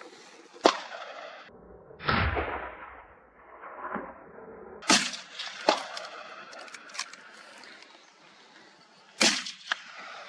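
Several hunting gunshots fired at running wild boar, irregularly spaced: a sharp, loud crack under a second in, two more about halfway through, and another near the end, with fainter distant reports between them.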